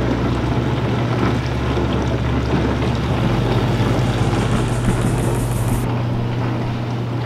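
Whirlpool dishwasher running on a test cycle just after its heating element was replaced: a steady motor hum under an even rush of water.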